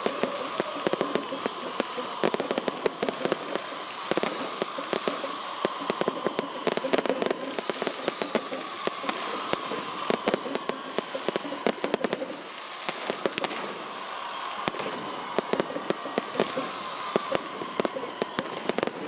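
Fireworks going off in a dense, irregular string of sharp cracks and pops as rockets rise and burst into crackling gold sparks. The cracks thin out briefly about two-thirds of the way through, then pick up again.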